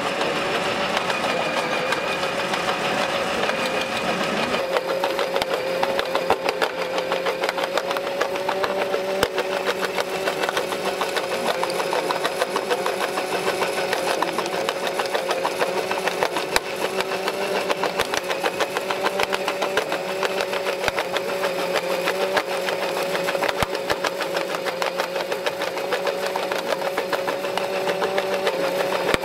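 Small electric drive motors of a 1/16-scale RC jaw crusher running with a steady whine, over a fast, continuous rattle of stones on its vibrating feeder grate.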